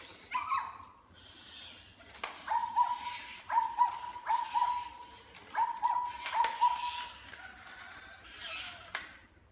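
Zoomer robot puppy toy doing its dance routine in answer to a voice command: short electronic notes and synthetic dog yips from its small speaker, repeated in a quick beat and mixed with sharp clicks, then stopping shortly before the end.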